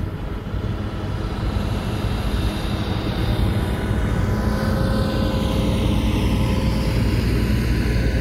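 Diesel engine of a pneumatic-tyred road roller running steadily as it rolls past on freshly laid asphalt, a little louder from about three seconds in, with a hiss that slides down in pitch as it passes.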